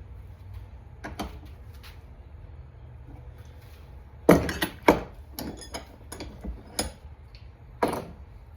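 Metal suppressor parts being handled and knocked together: irregular sharp clicks and clanks, a cluster of loud ones about four to five seconds in and another near the end, over a low steady hum.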